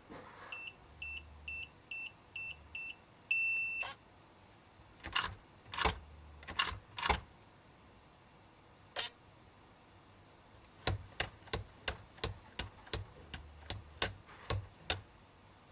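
Electronic keypad of a Homegician HP1 fingerprint door lock beeping six short times and then once longer, as a six-digit password is keyed in and confirmed. This is followed by a string of sharp clicks and taps, several a second near the end.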